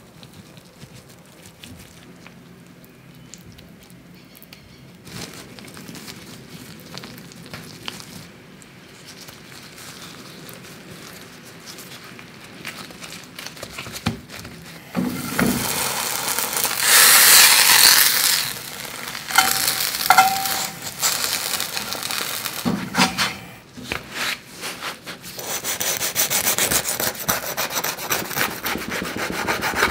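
Handling food on a wooden cutting board: shredded cheese sprinkled over burrito fillings with faint soft taps, then the tortilla folded and rolled with rubbing and loud crackling from about halfway. Near the end a knife saws through the crisp toasted tortilla with a long high-pitched scraping.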